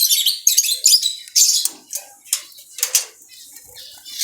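Caged zebra finches and other small cage birds chirping in quick, short, high calls, several at once, with wings fluttering in the cages.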